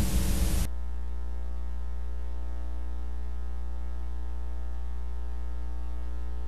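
Blank videotape playback noise: a loud hiss of static that cuts off suddenly under a second in, leaving a steady electrical mains hum with many overtones.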